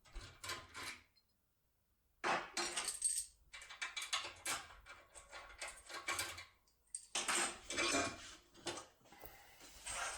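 Tornado RS7 foil-covered lock-pick tool being rocked back and forth under turning force inside a cylinder lock: irregular metallic clicking, scraping and rattling of the tool against the lock's pins and plug, with a short pause about a second in.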